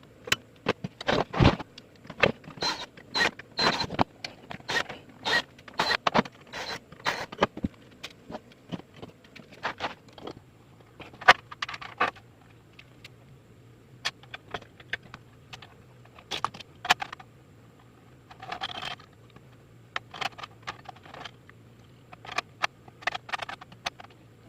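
Irregular clicks, knocks and scrapes of metal parts and hand tools being handled, denser in the first half, with a faint low hum joining about halfway through.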